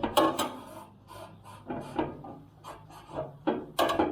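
Irregular short scrapes and knocks of grill parts and a pin being handled and worked during assembly, with louder clatters at the start and near the end.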